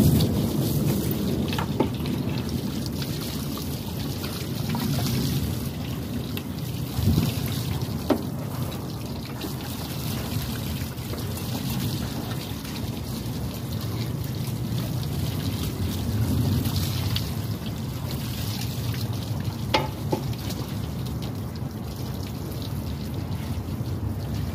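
Water from a hose running and splashing inside a packaged rooftop air-conditioning unit as it is washed down, with a few knocks.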